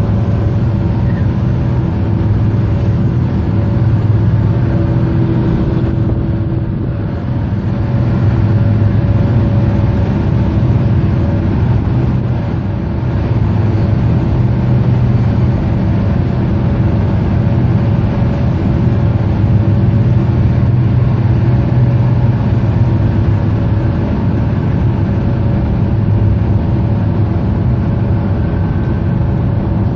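Tugboat's diesel engines running steadily under load while pushing a loaded scow barge: a loud, low, even drone with a steady hum above it.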